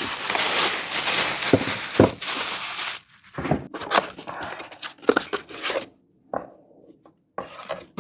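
Packaging being torn and crinkled for about three seconds, then intermittent rustling and small clicks and knocks of parts being handled.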